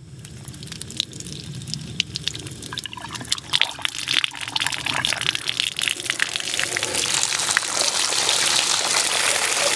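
Outdoor hose bib being turned open by hand, its water stream splashing onto the ground below. It starts faint with irregular spatters, then grows steadily louder into an even, steady splashing as the valve opens further.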